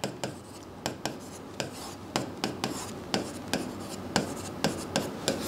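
Writing by hand on a board: a run of short scratching strokes and taps, roughly two or three a second, as numbers and brackets are written out.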